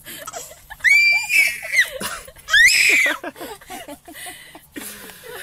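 Baby squealing with delight: two loud, high-pitched shrieks that rise and fall, about a second in and again near three seconds, with softer baby noises between.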